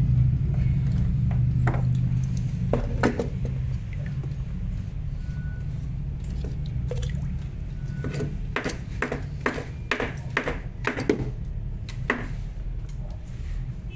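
Water trickling and dripping, with many short clicks and taps, over a steady low hum.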